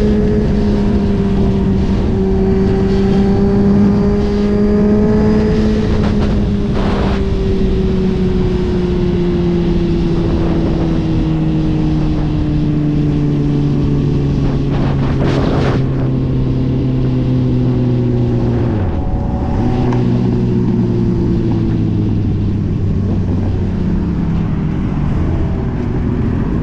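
Suzuki GSX-R1000 sport bike's inline-four engine heard from the rider's seat, its pitch sinking slowly as the bike rolls off and slows. About two-thirds through, the pitch dips and settles at a new level, a gear change. Wind rushes over the microphone throughout.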